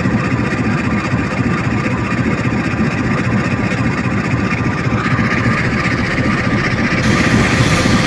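Diesel locomotive engines idling, a steady rumble that grows fuller and a little louder about five and seven seconds in.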